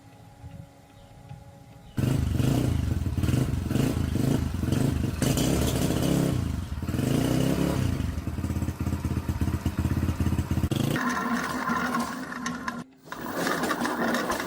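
Motorcycle engine running, starting abruptly about two seconds in, with its speed dipping and picking up again partway through. At about eleven seconds it gives way to a different, higher-pitched machine sound.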